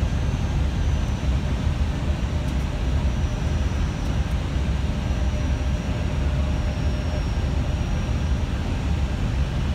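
Steady in-flight cockpit noise of an Airbus A318 on final approach: a dense, even rumble of airflow and engine noise, heaviest in the low end. A faint thin high tone comes and goes above it.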